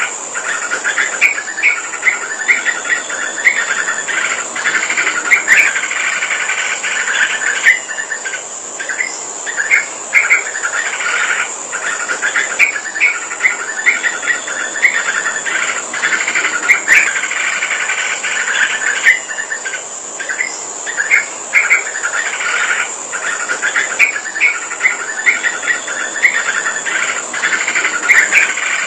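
Yellow-vented bulbul (trucukan) singing vigorously: runs of quick, bubbly chirping phrases separated by short pauses. A steady high-pitched insect-like buzz runs underneath.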